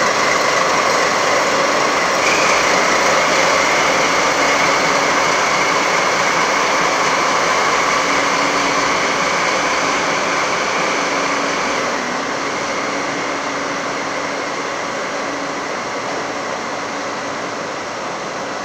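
Diesel-locomotive-hauled train pulling past and away: the diesel engine runs with a steady whine over the rumble, and the sound fades gradually as the train draws off.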